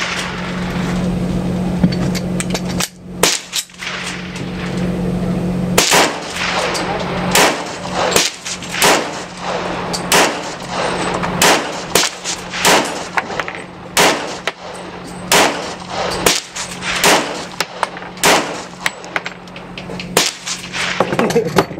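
Gunfire from a 12-gauge shotgun loaded with 00 buckshot: many sharp shots in quick succession, about one or two a second, some close together. A steady low hum runs under the first few seconds.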